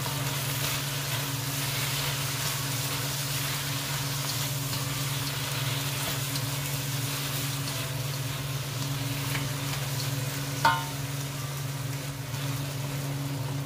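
Shrimp sizzling in a hot wok while a spatula stirs them, over a steady low hum. About ten seconds in, a single sharp clang of the spatula striking the wok rings briefly.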